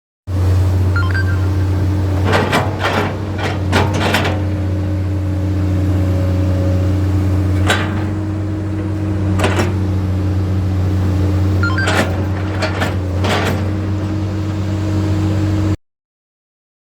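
Diesel engine of a Komatsu PC200 hydraulic excavator running at a steady idle, with a series of sharp knocks from the machine in three clusters.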